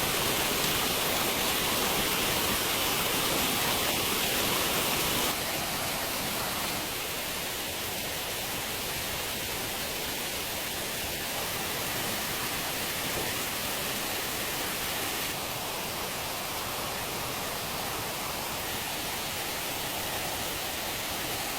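Steady rushing noise of water, an even hiss with no pauses that drops a little in level about five seconds in and shifts slightly again about two thirds of the way through.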